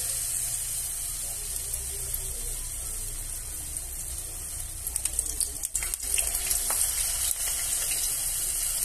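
Eggplant fritter batter deep-frying in hot cooking oil on a low flame: a steady sizzling hiss, with sharper pops and clicks from about five seconds in.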